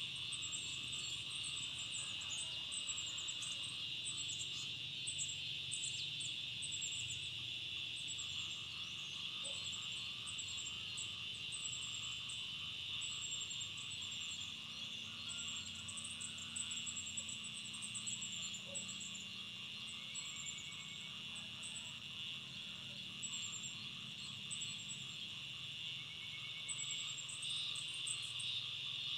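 Steady chorus of insects, a continuous high trilling drone, with short runs of very high, thin chirps recurring through it.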